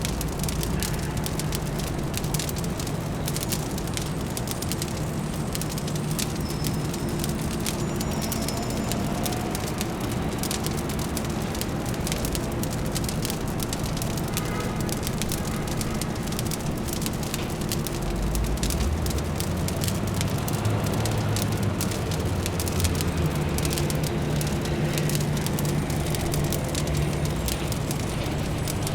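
Wood fire crackling with dense, irregular pops and snaps over a low, steady city hum. A deeper rumble swells a little past halfway.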